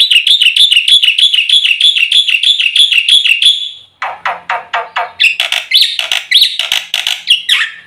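Black-winged myna (jalak putih) singing: a fast, even trill of repeated high notes, about six a second, for three and a half seconds, then, after a short break, a run of harsh chattering notes.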